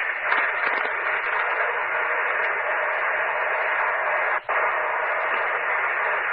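Steady hiss of static on a two-way radio channel heard through a scanner feed, an open transmission with no voice. It cuts out briefly about four seconds in.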